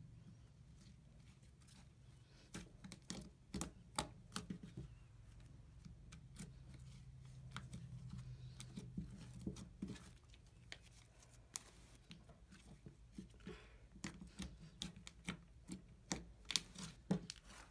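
Glitter slime being squeezed, stretched and pressed by hand: irregular sticky clicks and small pops, coming in quick runs early on and again near the end, over a faint steady hum.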